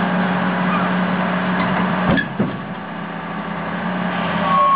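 Excavator's diesel engine running steadily, with two heavy knocks a quarter-second apart about two seconds in as the machine lowers itself off the truck bed without a ramp.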